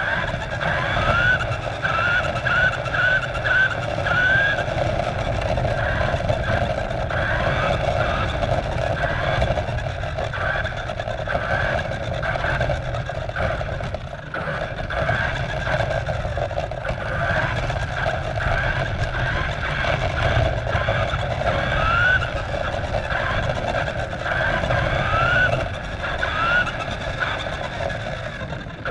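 Remote-control car's motor and gears whining as it drives over asphalt, heard up close from a camera mounted on the car, over a steady rumble of tyres on the rough surface. Several short rising whines near the start and a few more later as it speeds up.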